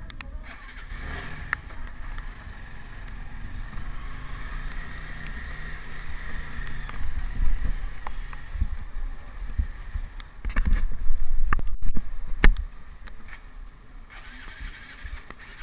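Motorcycle riding, with a steady low rumble and a run of loud knocks and bumps about ten to twelve seconds in.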